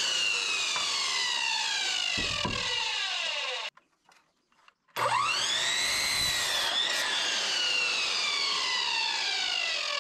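Sliding compound miter saw cutting 2x4 lumber: the motor whine falls slowly in pitch as the blade winds down. The sound drops out for about a second, then the whine rises quickly and falls slowly again.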